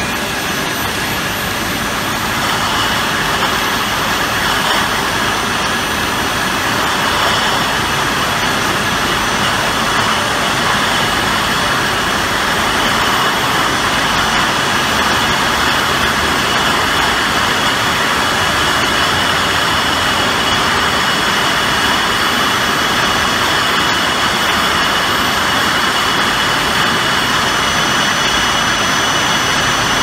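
Krones Lavatec KD-2 double-ended bottle washer running: a steady, loud industrial whir and rush with faint high whines laid over it.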